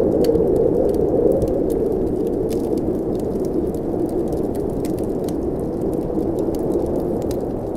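Blizzard wind blowing steadily and easing slightly, with a wood fire crackling over it in many small, sharp pops.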